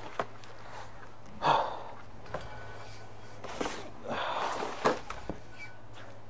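Handling noise from unboxing a steel mace: the cardboard box and its packing rustling and scraping in short bursts as the mace is pulled out, with a few sharp knocks.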